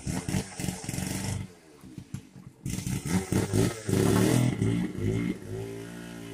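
Two-stroke chainsaw running hard in two revving stretches, dropping back for about a second in between. Near the end a steady droning music note comes in.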